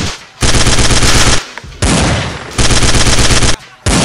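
Submachine-gun fire sound effect: three long bursts of rapid automatic fire, each about a second long, with short breaks between them.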